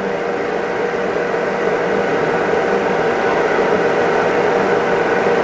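Steady running hum of machinery, an even noise with a steady whine over it. Any wrench work on the fitting is lost under it.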